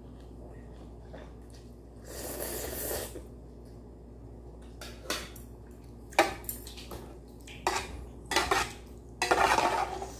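Metal spoon clinking and scraping against a metal pot of ramyeon, with several sharp clinks in the second half, amid eating sounds.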